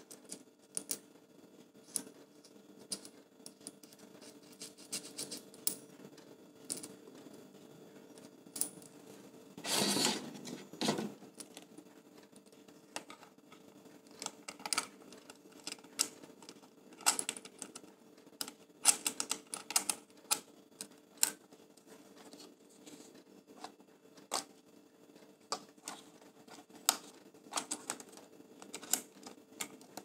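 Small metal and plastic clicks and taps from a D-ring screw and an F38 quick release plate being handled and screwed onto a camera's base, coming at irregular intervals, with a scraping rub lasting about a second around ten seconds in.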